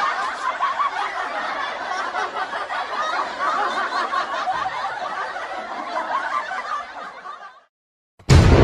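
A crowd of people laughing together in a dense wash of overlapping laughter, a laughter sound effect that fades out shortly before the end. A burst of music starts right at the end.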